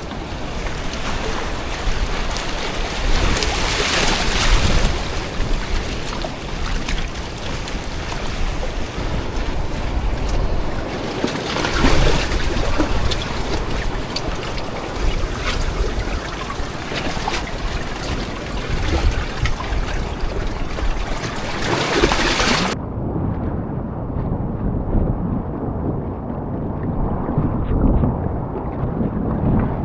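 Stormy sea noise: wind and waves rushing around a small raft, swelling several times as waves break. About three quarters of the way through, the hiss cuts off suddenly, leaving only a muffled low rumble.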